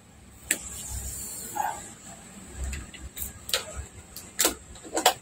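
A few sharp, separate clicks and knocks of a power cord, plug and test leads being handled on a workbench, over a faint steady high-pitched tone.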